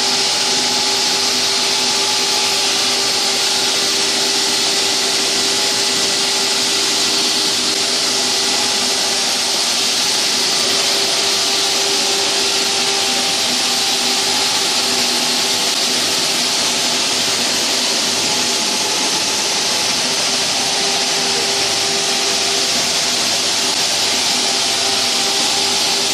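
Hydraulic diamond wall saw cutting concrete, running steadily: a loud continuous hiss with a steady hum under it.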